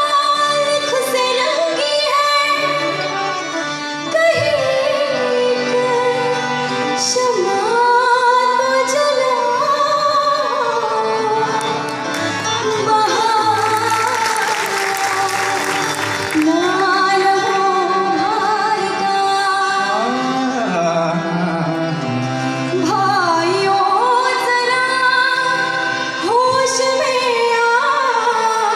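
A qawwali ensemble performing live: voices singing in gliding melodic lines over steady instrumental accompaniment. About halfway through, a few seconds of rapid percussive strokes come in.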